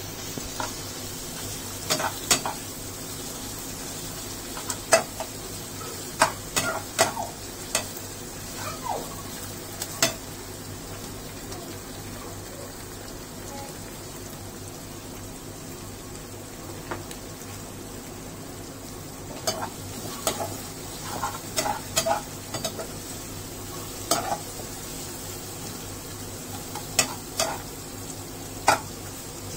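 Sliced onions and garlic sizzling in oil in a kadai, with a steel slotted spatula scraping and clinking against the pan in bursts of stirring. The clinking stops for several seconds in the middle while the sizzle goes on.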